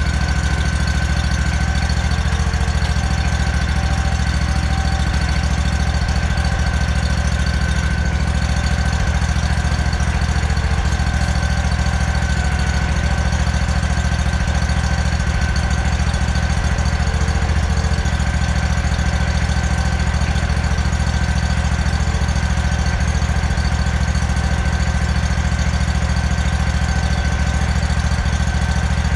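Riding lawn mower's engine idling steadily, with a constant low drone and a thin steady whine over it.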